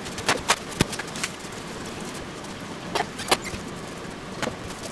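Packaged ground meat being unwrapped and handled with plastic-gloved hands: a scatter of short, sharp crinkles and taps, several in the first second and a pair about three seconds in, over a steady background hiss.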